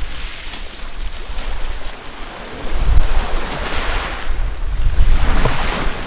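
Small Black Sea waves washing up a pebble beach, surging in and draining back over the stones several times, with wind buffeting the microphone as a low rumble that is strongest in the second half.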